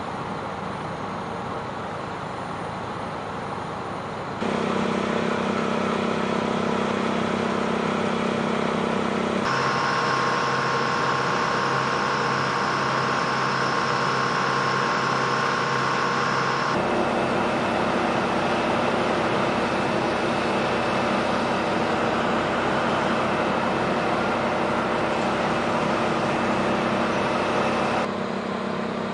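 Steady drone of idling engines and machinery on an aircraft flight line, with several held hum tones. The drone jumps suddenly in level and pitch about four seconds in, again near ten and seventeen seconds, and drops back near the end.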